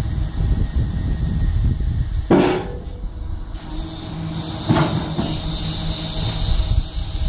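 Hydraulic folding ramp of a low loader trailer unfolding and lowering to the ground, over a steady low mechanical hum. Two sharp metallic sounds come as the ramp sections move, one about two seconds in and a second near five seconds in.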